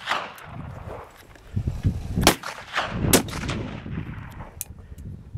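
Two rifle shots a little under a second apart, each a sharp crack with a short echo.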